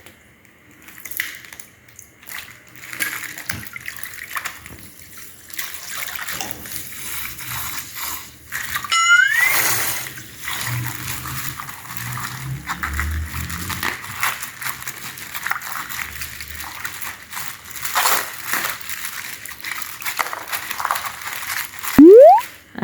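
Slime being squished and stretched by hand: wet squelching with many small clicks. A short rising whistle comes about nine seconds in, and a loud rising tone just before the end.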